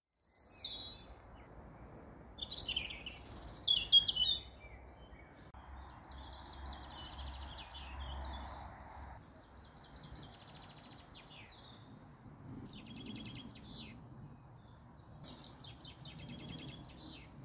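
Wild songbirds singing and calling in a chorus of short chirps and trills, loudest about three to four seconds in, over a faint steady outdoor background.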